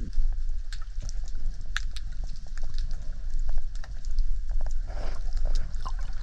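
Underwater sound heard through a diver's camera: a steady low rumble of moving water with many scattered clicks and crackles.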